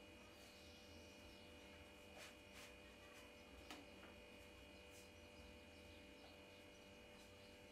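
Near silence: a faint steady electrical hum, with a few faint ticks between two and four seconds in.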